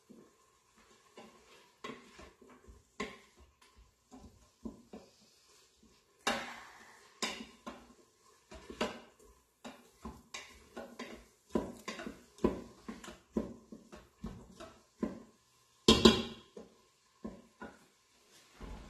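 Wooden spoon stirring chopped onion and celery in the stainless steel inner pot of an Instant Pot on sauté, with irregular scrapes and knocks against the pot. The loudest clatter comes about 16 seconds in.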